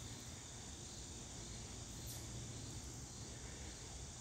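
Faint, steady outdoor background of insects chirring.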